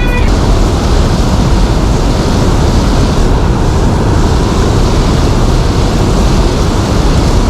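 Loud, steady rushing noise of wind buffeting the microphone over a flowing river, heaviest in the low rumble.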